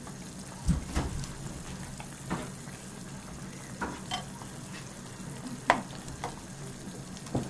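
Nabe hot pot cooking on the stove with a steady low hiss. Scattered clinks and knocks of utensils against the pot come through it, the loudest about three-quarters of the way through.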